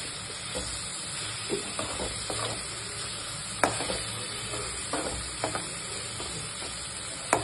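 A steel spoon stirs rohu fish pieces through thick curry masala in a metal kadai while the curry sizzles steadily. The spoon clinks sharply against the pan twice, about halfway through and again at the end.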